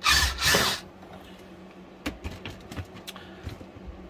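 A long masonry drill bit on a cordless drill being worked back out of a freshly drilled hole through the wall: two short bursts of grinding and scraping in the hole, then a few light knocks and rattles as the drill and bit are handled.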